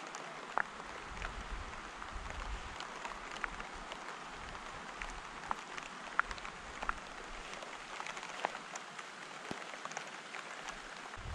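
Light rain shower: a steady hiss with many scattered raindrop ticks, and an occasional low rumble of wind on the microphone.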